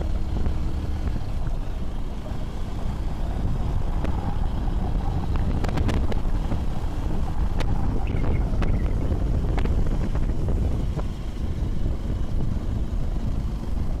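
Motorcycle running along at road speed, a steady low rumble mixed with wind rushing over the microphone. A few sharp clicks come in the middle.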